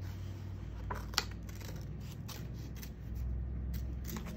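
Scissors snipping through pink construction paper: a handful of short, sharp snips at irregular intervals.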